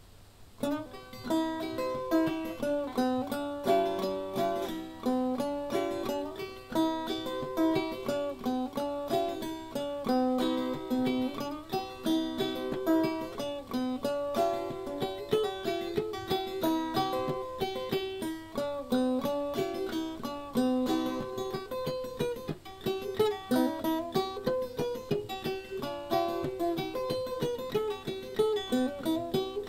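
Background music of a rapidly picked acoustic string instrument, starting about half a second in.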